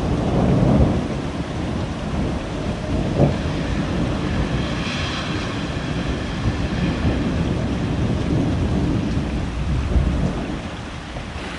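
Thunder rolling over steady rain, loudest in the first second, with a sharp crack about three seconds in, and the rumble dying away near the end.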